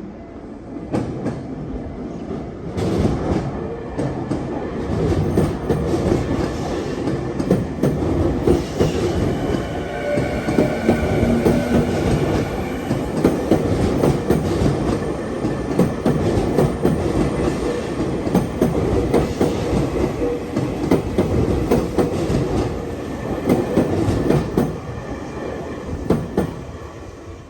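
A Tokyu electric train running through at a level crossing, its wheels clacking rapidly over the rail joints. The sound builds up about three seconds in and eases off near the end, with a faint wheel squeal about ten seconds in.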